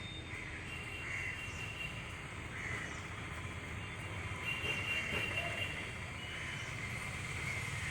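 Outdoor ambience: a steady low rumble with short, high bird calls over it.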